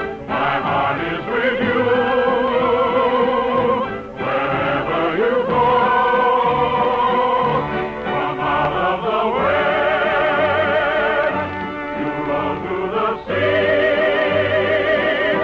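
Operetta singing with orchestra: voices hold long notes with wide vibrato, the phrases breaking briefly about four, eight and thirteen seconds in. The sound is that of a 1950s radio broadcast recording, thin in the highs.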